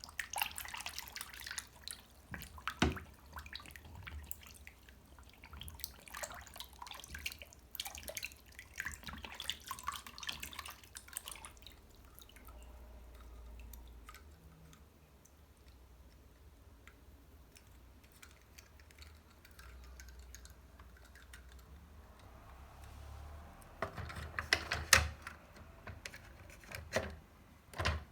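Water dripping and splashing as toy cars are washed, with light clicks from the cars being handled. The handling and splashing are busy at first, die down for a while, then pick up again with a louder cluster of splashes and knocks.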